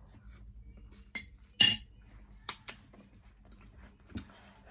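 Metal fork clinking against a ceramic dinner plate: several short, sharp clinks, the loudest about a second and a half in.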